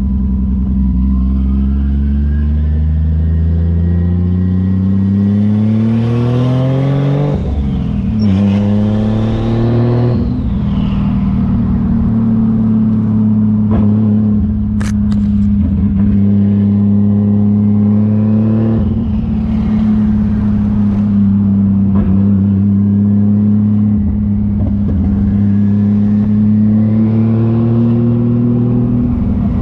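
Turbocharged Toyota 1JZ inline-six with an open dump pipe pulling up through the gears, its pitch climbing twice with shifts about seven and ten seconds in, then cruising at steady revs with brief lifts. A high turbo whistle rises with each pull, and a sharp click sounds about halfway through.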